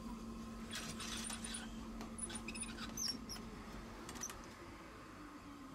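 Inside a Tosaden streetcar: a steady low electrical hum, with a scatter of short high-pitched squeaks about a second in and again around three and four seconds in.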